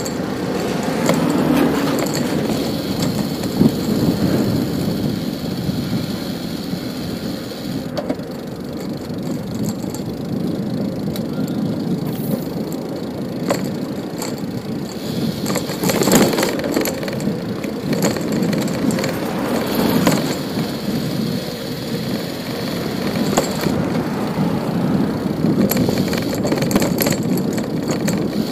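City street traffic heard from a moving bicycle: cars and engines passing over a steady rolling rumble, with a few sharp knocks.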